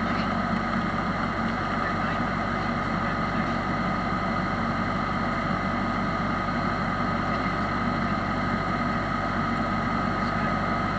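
Single-engine propeller plane's engine and propeller droning steadily in cruise, heard from inside the cabin. A thin, steady high whine runs above the drone.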